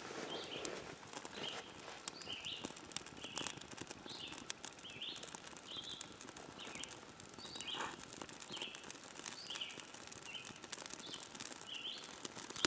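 Small twig and birch-bark fire crackling with many light pops as it takes hold. A bird's short high chirp repeats about every half second throughout.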